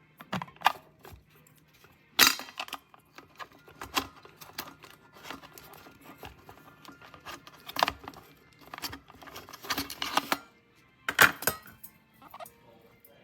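Irregular clicks, knocks and clinks from a glass electric kettle being handled, with three louder knocks about 2, 8 and 11 seconds in.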